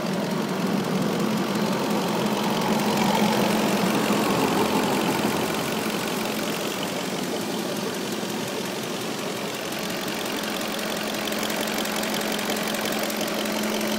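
Audi A8's 4.2-litre V8 engine idling with a fast, light ticking that the owner places in or near the right side of the engine, with no cause yet known. The sound swells slightly about two to five seconds in.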